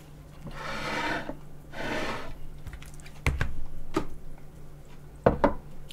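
Two spells of paper tissue rustling as hands are wiped, then a few knocks, the loudest about five seconds in as a metal pan is set down on the wooden table.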